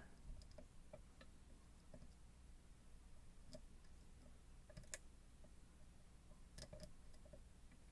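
Faint, irregular small clicks and taps of a lock pick and tension wrench working the pins of an ASSA Twin Combi lock cylinder, the clearest click about five seconds in.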